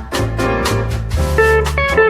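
A built-in Huawei EMUI 2.3 phone tone playing: upbeat jazzy music with a steady drum beat and bass. A plucked, guitar-like melody comes in a little over a second in.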